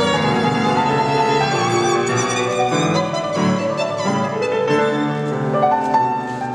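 Violin bowed in a classical concert performance, sustained notes with vibrato moving from pitch to pitch.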